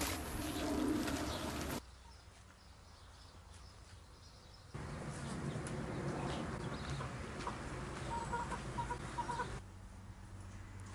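Birds calling over a quiet background, with short high chirps near the end. The background changes abruptly twice.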